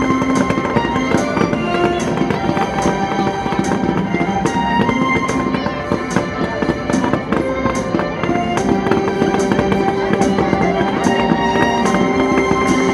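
Fireworks going off in frequent, irregular bangs and crackles over loud music with sustained notes.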